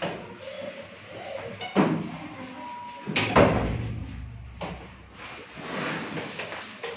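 Two knocks about a second and a half apart, the second louder and followed by a low rumble lasting about a second and a half.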